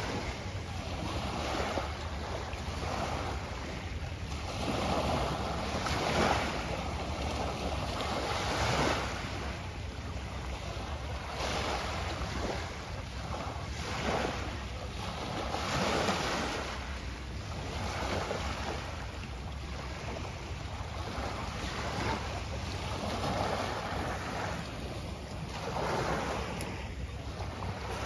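Small sea waves breaking and washing onto the shore, surging every two to three seconds. Wind rumbles steadily on the microphone underneath.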